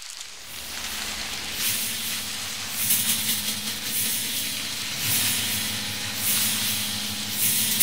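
Electronic sound-design soundtrack: a hissing, rushing noise that swells and fades about once a second, over a low steady hum.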